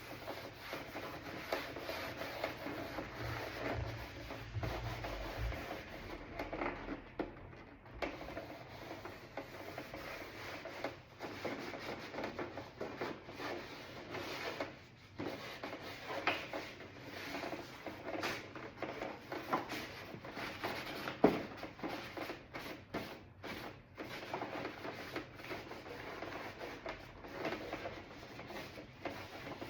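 A rag wet with acetone rubbing and wiping over a door panel, irregular back-and-forth scrubbing strokes to clean off sanding dust before paint, with an occasional light knock.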